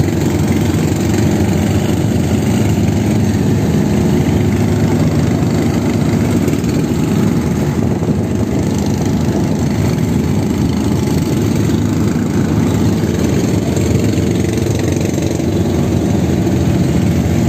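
Fishing boat's engine running steadily under way, a dense even rumble, with water rushing and splashing against the hull in rough sea.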